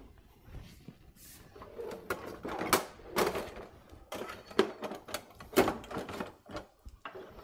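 Metal kitchen utensils clattering as a crowded kitchen drawer is rummaged through: an irregular string of clinks and knocks, most of them from about two seconds in.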